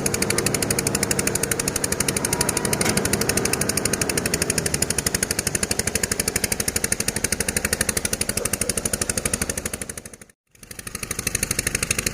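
An engine running steadily with a fast, even pulsing beat. The sound drops out briefly about ten seconds in, then resumes unchanged.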